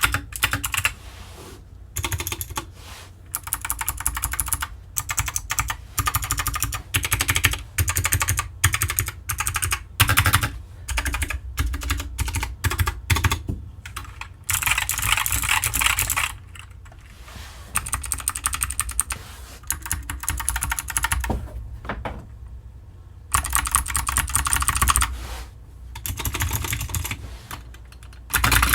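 Rapid typing on a DK61 60% mechanical keyboard with clicky blue switches, in bursts of fast key presses separated by short pauses.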